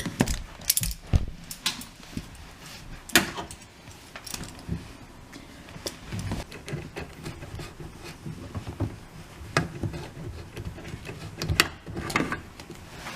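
Irregular metallic clinks and knocks of a wrench and fittings, from undoing the brass water-inlet coupler under a dishwasher.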